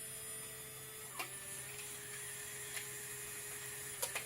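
Fujifilm instant camera's motor running with a steady whine as it pushes out the freshly exposed print, with a few light clicks along the way.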